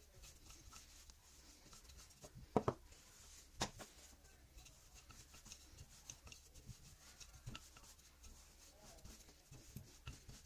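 Wooden rolling pin rolling out floured dough: a faint, soft rubbing and rolling, with scattered small ticks and two sharper knocks about two and a half and three and a half seconds in.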